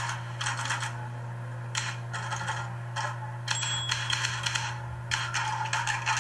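Computer keyboard typing in several short bursts of rapid key clicks, over a steady low electrical hum.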